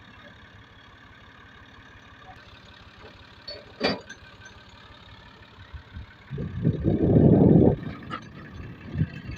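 Massey Ferguson 240's three-cylinder diesel engine idling steadily, with a single sharp knock about four seconds in and a loud burst of low noise lasting over a second near seven seconds.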